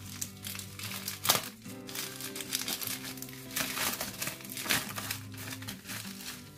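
Padded plastic mailer envelopes crinkling in irregular bursts as they are handled and pulled open, over steady background music.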